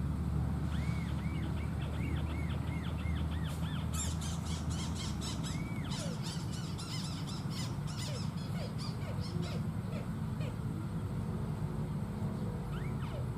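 Birds calling: a run of repeated arching notes, about two a second, then a fast, dense chatter between about four and eight seconds in. A low steady rumble runs underneath and fades about five seconds in.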